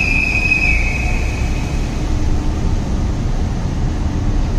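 Steady low rumble and hiss of a parking garage's ambient noise, with a thin high whine that fades out about a second in.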